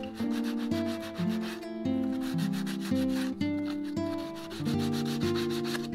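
Hand sanding of bare wood with a sanding block, rubbed back and forth in repeated strokes along the edge of a wooden chest, over acoustic guitar background music.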